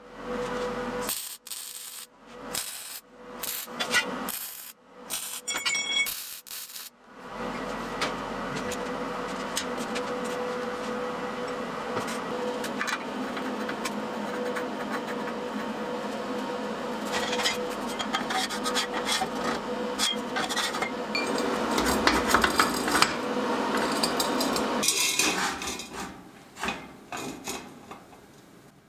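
MIG welding on steel tube and nut: a crackling, sizzling arc. It comes first as several short tack-weld bursts, then as a long steady bead that fades out near the end.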